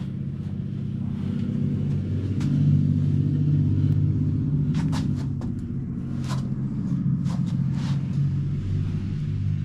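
A low, steady motor-like rumble with a humming pitch that swells about two to three seconds in and slowly eases off, with a few light clicks over it.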